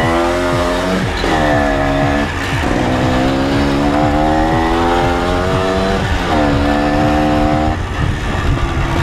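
Minsk motorcycle's two-stroke single-cylinder engine accelerating hard through the gears, its pitch climbing in each gear and dropping at three upshifts, then the throttle eased off near the end. The engine has a worn piston group, which the rider says leaves it weak at low revs until the expansion chamber comes on.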